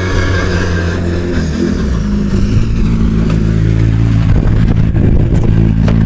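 Rally car engine running steadily at low revs, close by, with a brief waver in pitch about one and a half seconds in.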